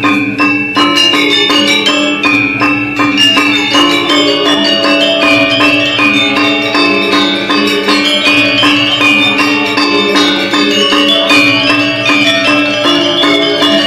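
Balinese gamelan ensemble playing a tabuh kreasi: bronze metallophones struck in fast, dense strokes over steady ringing lower tones.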